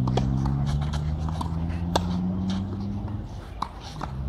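Tennis balls struck by rackets during a doubles rally on a clay court: a few sharp pops, the loudest about two seconds in, over a steady low hum.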